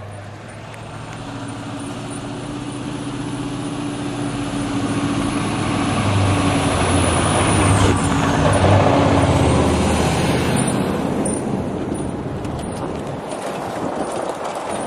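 Loaded Scania R650 timber truck's V8 diesel running under way, growing louder as it approaches and passes about eight to nine seconds in, then easing off with tyre noise on the snowy road.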